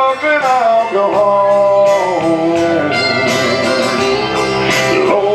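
A man singing a slow gospel song over instrumental accompaniment, drawing out long notes that slide up and down in pitch.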